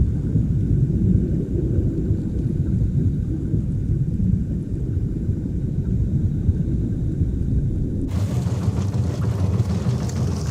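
Deep, muffled rumble with no high sound at all. About eight seconds in it cuts to the fuller open-air sound of a boat's engine.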